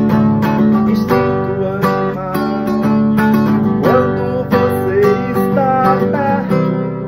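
Acoustic guitar music: strummed chords under a melody line that slides in pitch in places.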